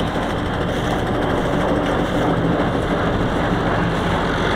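Oliver 1955 tractor running steadily under load, driving a PTO stalk chopper that is shredding corn stalks: a constant engine drone under the chopper's rushing noise, growing slightly louder toward the end.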